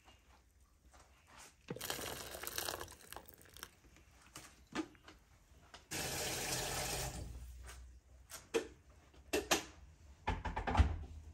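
Water running from a tap in two short spells into a bowl of Chinese kale being washed, with splashes, clicks and knocks between, and a louder thump near the end.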